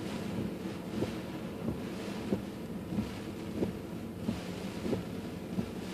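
Car windshield wipers sweeping back and forth in the rain, a soft knock about every two-thirds of a second, over a steady hum and hiss inside the car's cabin.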